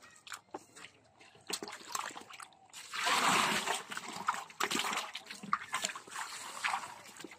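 Live fish tipped into a metal drum of muddy water: a loud splash about three seconds in, followed by irregular splashing as the fish thrash in the water. Small wet slaps and clicks of fish and mud being handled come before it.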